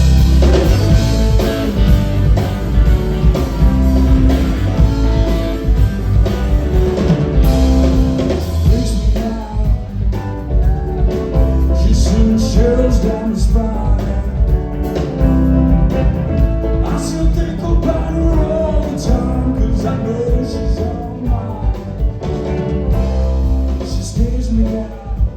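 Live rock band playing a song, with guitar, drums and a voice singing.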